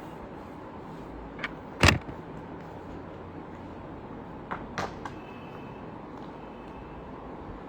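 Small tools and parts clicking and knocking against an opened MacBook Air on a repair bench, with one loud knock about two seconds in and a few lighter clicks a little past the middle, over a steady background hum.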